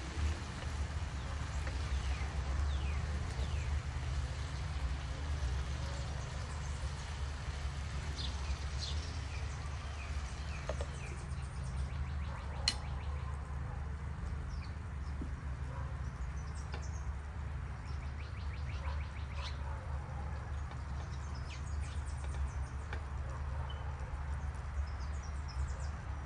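Outdoor ambience: faint scattered bird chirps over a steady low rumble, with one sharp click about halfway through.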